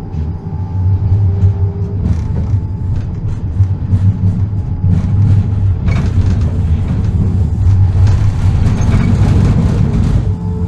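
A tram running along street track and gathering speed, with a steady low rumble and a run of clicks and knocks as its wheels cross rail joints and points. The clicks come thickest in the second half.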